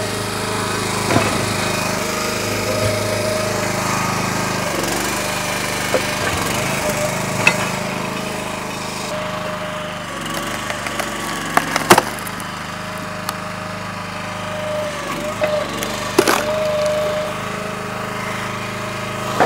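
Split-Fire 3490 log splitter's small gas engine running steadily while splitting firewood, with a few sharp cracks and knocks of wood, the loudest about twelve seconds in.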